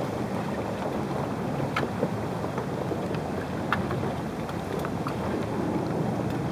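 Sailboat under sail: a steady rush of wind and water, with wind buffeting the microphone and a few scattered light ticks.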